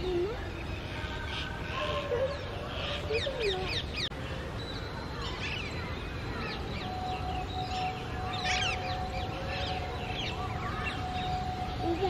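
Wild birds calling and chirping: many short chirps and quick whistled notes from several birds, over a low background rumble, with a faint steady hum joining in the second half.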